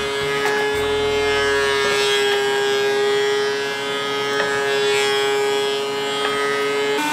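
DeWalt benchtop thickness planer running with a steady, high-pitched whine, with a lower rumble in the first two seconds as a board feeds through. A few light knocks of wood boards being handled.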